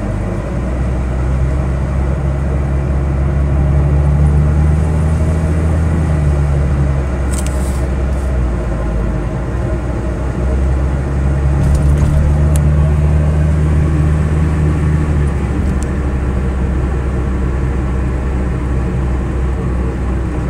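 2003 Mitsubishi Lancer ES 2.0 L SOHC four-cylinder engine driving along, pulling through two accelerations with its note rising and then dropping back, once early and once about halfway through. The car has a cylinder 2 misfire that leaves it running rough, though it is not sputtering here.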